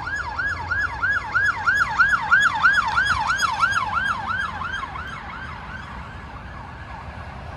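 Emergency vehicle siren on fast yelp, its pitch swooping up and down about three times a second. It grows louder to a peak two or three seconds in, then fades away as it passes. Steady road-traffic rumble runs underneath.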